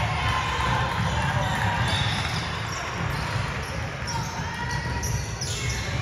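Basketball game in a gym: the ball bouncing on the court, with voices in the echoing hall.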